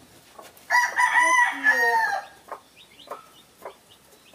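A rooster crowing once, a long call of about a second and a half that falls at the end, followed by a few faint taps.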